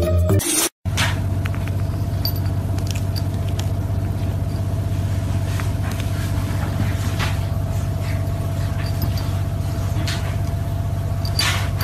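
Cat purring steadily, a low rumble that starts just under a second in, with a few faint ticks over it.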